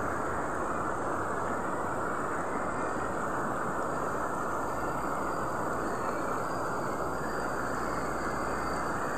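Steady rush of a fast, shallow river flowing over rocks and boulders, unbroken at an even level.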